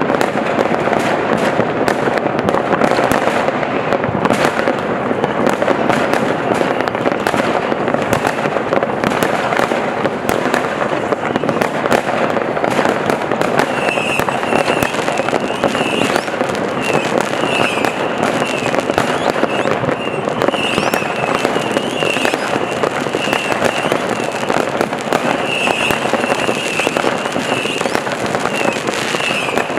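New Year's fireworks going off in many places at once: a dense, unbroken crackle of firecrackers and bangs from rockets and ground fountains. About fourteen seconds in, a short high warbling tone starts repeating about once a second over the crackle.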